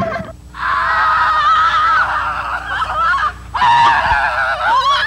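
People screaming in fright: a long, high, wavering scream, then another burst starting about three and a half seconds in.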